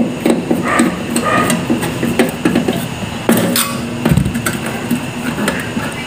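Repeated clicks and metallic knocks as a screwdriver works on a magnetron and the magnetron is worked loose from a microwave oven's sheet-metal chassis, in a part swap for an oven that is not heating.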